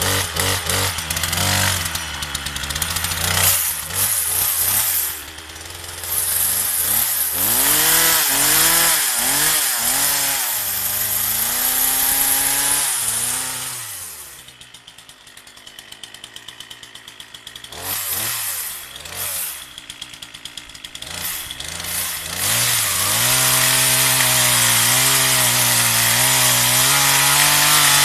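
Partner 340S two-stroke chainsaw engine revved up and down several times. About halfway through it drops back to idle, is blipped again, then holds a steady high speed for the last few seconds.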